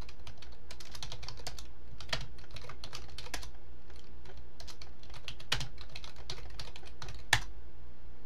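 Typing on a computer keyboard: quick runs of keystrokes with short pauses between them, and one harder key press near the end, over a steady low hum.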